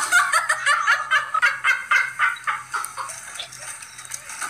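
A rapid string of high-pitched laughs, about five a second, trailing off after about three seconds.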